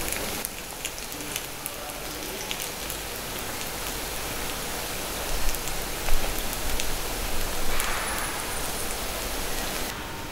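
Takoyaki batter sizzling in the hot Teflon-coated pan of a gas takoyaki machine, with light clicks and taps of wooden sticks turning the balls in their holes.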